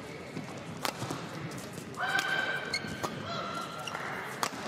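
Badminton doubles rally: sharp hits of rackets on the shuttlecock about a second in, at about three seconds and near the end. In between come two long squeaks of court shoes sliding on the court mat.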